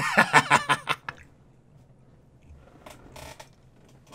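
A man laughing hard: a quick run of loud laughs in the first second, then the laugh goes almost silent, with a few faint breathy wheezes.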